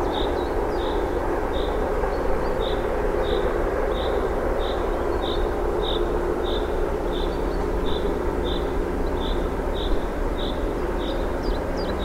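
Twin-section 2M62U diesel locomotive working a freight train, its two-stroke V12 engines a steady drone. Over it, a bird repeats a short high chirp about one and a half times a second.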